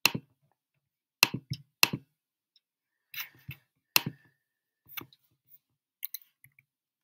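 About ten sharp, separate clicks of a computer mouse and keyboard as someone works at a computer, with a short quick run of them a little after three seconds.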